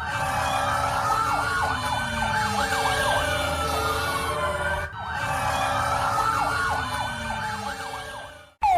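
Several emergency-vehicle sirens sounding at once: slow wails rising and falling over a few seconds, overlaid with quick yelp sweeps. The passage plays twice, with a short break about five seconds in, and cuts off abruptly near the end.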